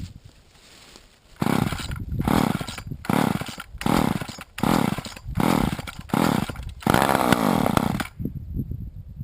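A 1988 Poulan 2000 two-stroke chainsaw is idling, then revved in about seven short bursts a little under a second apart. One longer rev follows, and then it drops back to idle near the end.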